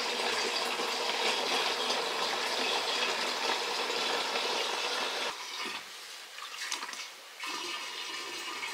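Water pouring or running in a steady rush that stops suddenly about five seconds in and starts again near the end.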